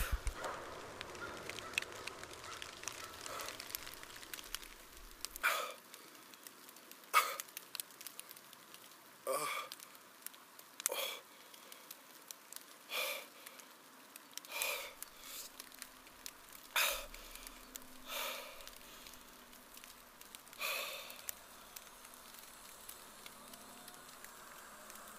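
A man breathing in short, sharp gasps, about one every couple of seconds, in distress.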